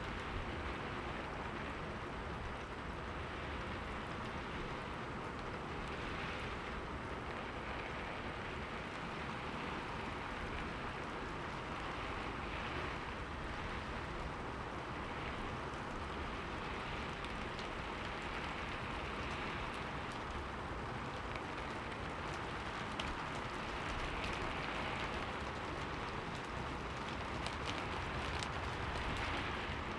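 Steady rain falling and pattering on a window, an even hiss with scattered faint drop ticks and a low rumble underneath.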